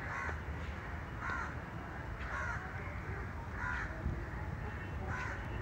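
A crow cawing, five caws spaced a little over a second apart.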